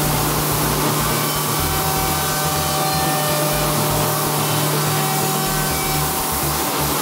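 Multi-spindle CNC woodworking machining center working timber window-frame parts: a steady rushing noise of the spindles cutting wood along with the dust extraction running.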